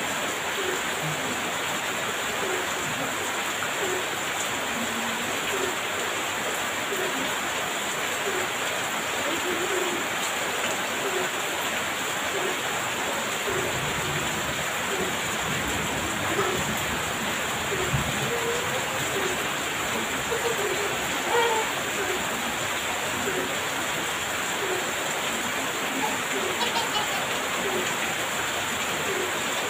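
Heavy rain pouring steadily, with a faint short note repeating about once a second underneath.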